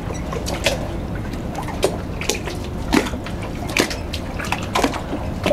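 Steel anchor chain links clinking now and then as hands shift them while a silicone marker is fitted, about nine irregular small clicks over a steady low background rumble.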